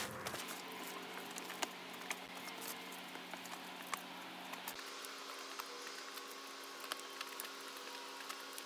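Faint outdoor background with a light hum and scattered small ticks and taps as a small bag of potassium chlorate, carbon and sulfur mix is dropped onto concrete. There is no bang: the drop does not set the mixture off.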